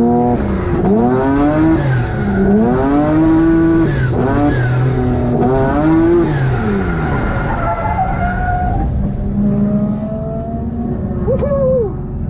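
Twin-engine, twin-turbo Mazda MX-3 under hard throttle, the engine note rising and dropping back about four times in quick succession, then holding steadier before easing off near the end.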